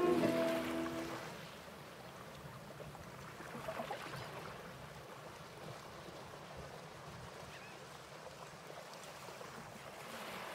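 Bowed string music fades out over the first second or so, leaving a faint, steady wash of sea water lapping.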